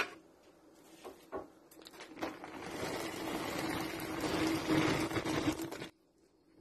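Dry tapioca pearls poured from their package into a pot of boiling water: a clack at the start, then a dense, rushing pour that builds for about three seconds and cuts off abruptly. A faint steady hum runs underneath.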